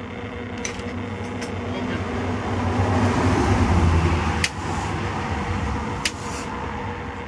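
A rushing noise with a low rumble swells over a few seconds, then drops away at a sharp snap about four and a half seconds in, with a second snap about six seconds in: the transformer's fuse coming open as the primary jumper is cut loose.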